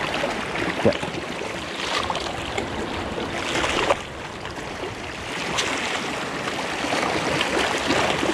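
Small waves washing and splashing against shoreline rocks, a steady wash with a few sharper splashes, the loudest about a second in and near four seconds.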